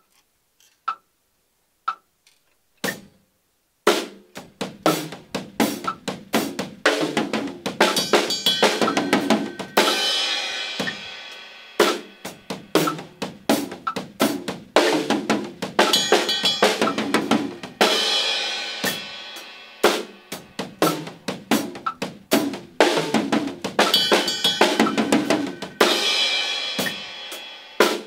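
Four quiet clicks about a second apart, then an acoustic drum kit playing a two-bar groove of kick, snare and toms with hi-hat. A ringing cymbal comes back about every eight seconds as the phrase repeats.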